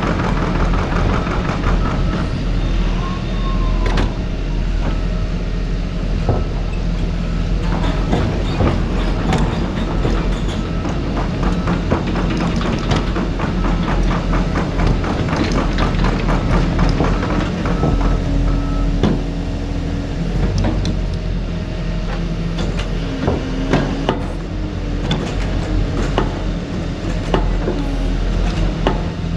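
Hydraulic excavators working: a steady diesel engine drone under load, with frequent metallic knocks and clanks from the machines. A pitched hydraulic whine comes and goes in the second half.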